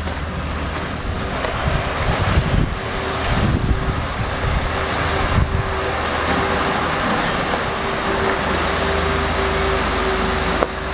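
Heavy ore truck's diesel engine running, with a low rumble and a steady hum that sets in a few seconds in and holds. Wind buffets the microphone in the first few seconds.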